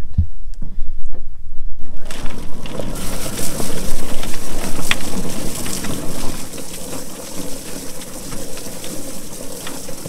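Drum-style chicken plucker spinning with water spraying into it, a dense crackling wash as the wet, scalded birds are tumbled and their feathers stripped. It starts suddenly about two seconds in.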